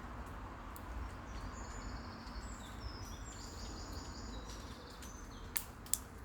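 Outdoor background with thin, high, steady whistled tones at several pitches through the middle, then two sharp cracks near the end, typical of a squirrel gnawing open a nut.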